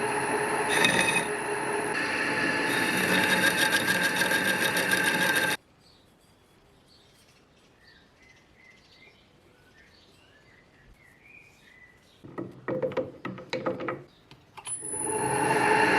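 An electric power tool's motor running steadily with a high whine, cutting off abruptly about five and a half seconds in. A few seconds of near quiet follow, then a burst of sharp metallic clatters, and the motor starts up again near the end.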